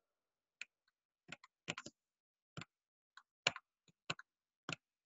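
Computer mouse clicking as on-screen shapes are selected and dragged: about a dozen faint, sharp clicks at irregular intervals, some in quick pairs or threes.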